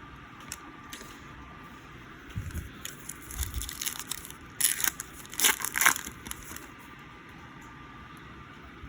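Crinkling and rustling from trading cards and their pack wrapping being handled. It comes in an irregular cluster of crackles from about two to six and a half seconds in, loudest a little after the midpoint.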